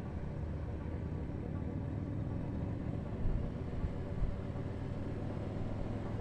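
Harley-Davidson V-twin engine running steadily as the motorcycle rides along, heard from on the bike, with a low rumble and two brief louder bumps around the middle.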